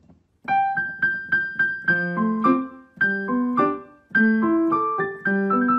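Background piano music: a light melody of single struck notes with low accompanying notes, starting about half a second in after a brief silence.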